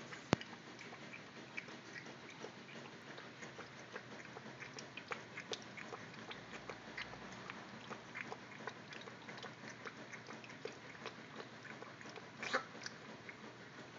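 A puppy lapping water from a stainless steel bowl: many small, irregular wet clicks and splashes. There is one sharp click just after the start and a louder flurry near the end.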